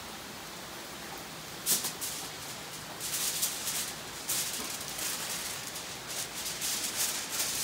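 Sheet of aluminum foil being pulled out, crinkled and spread flat by gloved hands for wrapping meat. It comes in irregular crackling rustles, starting a little under two seconds in.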